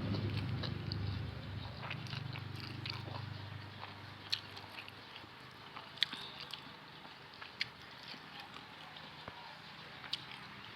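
Someone eating: quiet chewing and biting, with a few sharp clicks spaced a second or two apart and a low hum fading out over the first few seconds.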